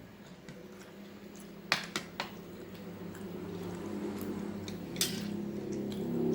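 Eating at the table: several sharp clinks of cutlery against a bowl, four of them, with soft wet squishing of food being chewed, over a low hum that grows louder toward the end.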